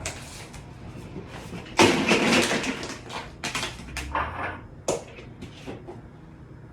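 Handling noise on a phone's microphone as it is fumbled with a foot: rustling, scrapes and knocks. The loudest is a burst of rustling about two seconds in, and a sharp click comes near five seconds.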